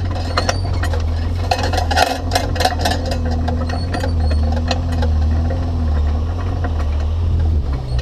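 GMC Yukon XL driving slowly along a rough dirt trail: a steady low engine and road rumble, with a burst of rattles and knocks from about one and a half to three and a half seconds in.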